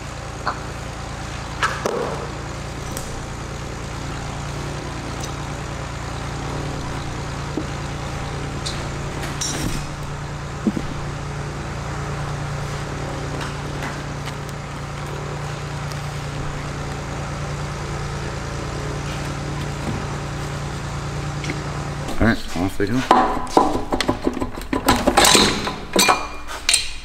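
Metal tools and engine parts clinking and clattering, loud and busy near the end, over a steady low hum with a few isolated clicks.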